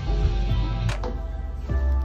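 Background music: an instrumental stretch with steady bass and held notes, and a few light percussive hits.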